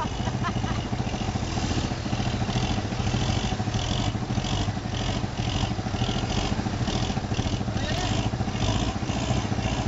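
Mitsubishi L200 pickup's engine running steadily at low revs as the truck climbs slowly onto a log seesaw obstacle. A fainter, higher-pitched pulse repeats about two to three times a second over the engine.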